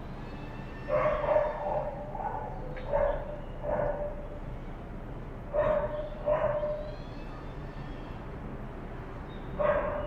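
Dog barking in irregular bouts, about seven barks, some short and some drawn out, over a steady background noise.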